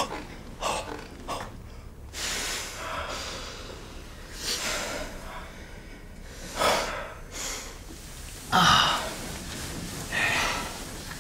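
A person breathing heavily, with about seven loud, breathy exhalations or gasps spaced irregularly a second or two apart.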